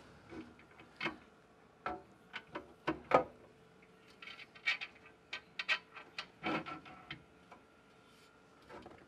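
Irregular light clicks and knocks of an interior cargo rack's brackets, slats and bolts being handled and fitted, the sharpest knock about three seconds in and a busy run of clicks in the middle.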